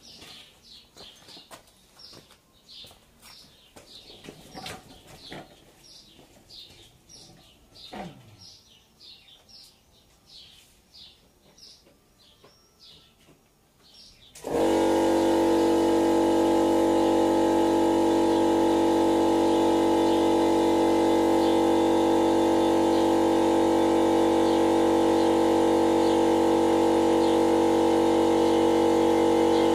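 A bird chirps repeatedly against quiet. About halfway in, a portable electric air compressor starts up suddenly and runs steadily with a loud, even hum, pumping air into a freshly mounted motorcycle tyre.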